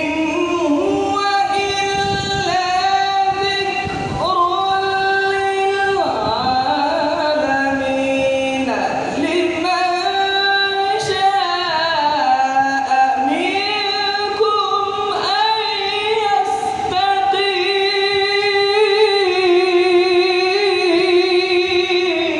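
A man reciting the Quran in the melodic, chanted style of a qari, amplified through microphones. He holds long, wavering notes that glide up and down, in phrases broken by short pauses for breath.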